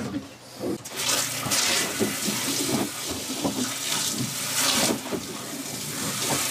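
Sea water sloshing and splashing against the hull of a small boat, rushing in uneven surges that swell and ease.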